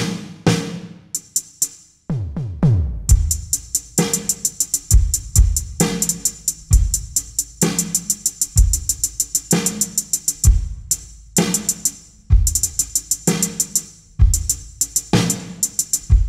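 Electronic drum kit sounds fired from a drum trigger: a pop-style groove of kick drum, snare and fast hi-hat. A few hits falling in pitch, like electronic toms, come about two seconds in, before the steady beat sets in.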